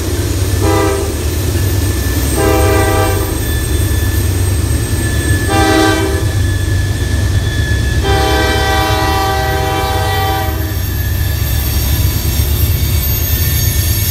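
Locomotive air horn sounding three short blasts a few seconds apart, then one long blast lasting about two and a half seconds, over a steady low rumble of a passing train.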